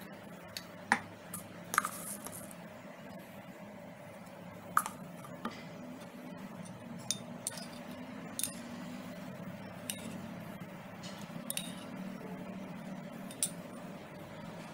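Spoons clinking and tapping against bowls and a glass jar while ingredients are measured out: scattered sharp clicks, roughly one every second or two, over a steady low hum.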